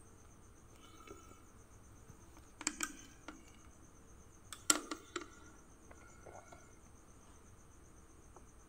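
Faint light clicks and taps of test leads and wires being handled, in two small clusters about three and five seconds in, over a steady high-pitched trill.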